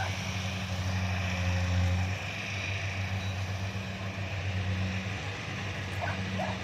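Kubota DC-70 combine harvester's diesel engine running steadily with a low hum. It swells slightly and then drops in level about two seconds in.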